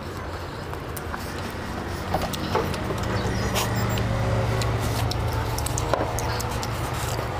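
A steady low engine-like hum that swells in the middle and eases off near the end, with a few scattered light clicks and knocks of tableware and drinking.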